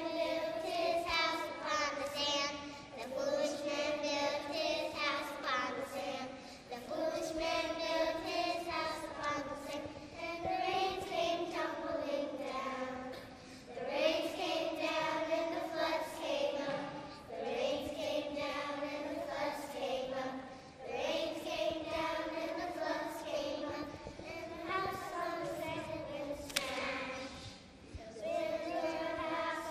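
A group of kindergarten children singing together in unison, in short phrases with brief breaks between them.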